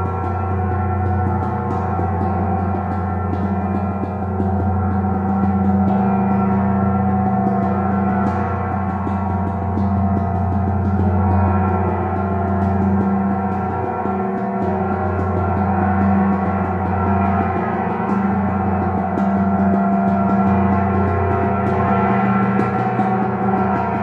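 A 26-inch vintage Zildjian Turkish tam-tam kept sounding with a soft mallet, a sustained shimmering wash with no sharp strokes. Its deep hum swells and fades every few seconds.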